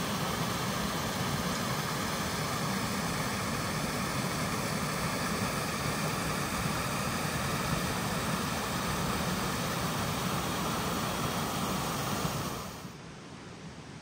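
Small forest waterfall rushing steadily as the stream spills over a series of sandstone steps. Near the end the rush drops suddenly to a much quieter hiss.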